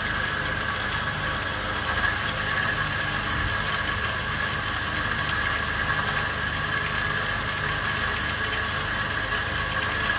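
Electric motor drive turning a Comandante hand coffee grinder at 144 RPM, its burrs grinding coffee beans: a steady mechanical whir with a held, higher whine.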